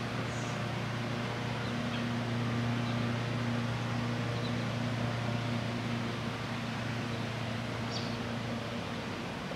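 A steady low machine hum under a light hiss, with a few faint short high chirps from small birds, the clearest near the end.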